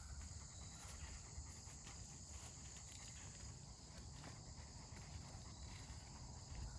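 Faint steady high chirring of crickets, with a low rumble underneath.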